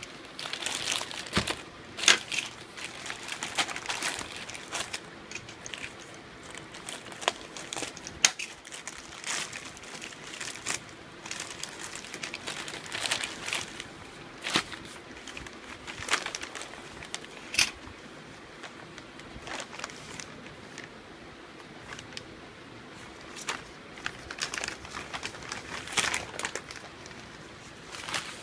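Packaging being handled and unwrapped: crinkling and rustling of plastic wrap and paper, with irregular sharp clicks and taps from the box and its contents.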